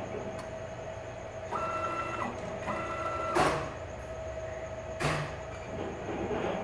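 Premier Plasma CNC table's stepper motors driving the torch gantry on a dry run with no arc lit: a steady whine, rising to a higher whine for two short moves around two and three seconds in. Two sharp clacks come about three and a half and five seconds in.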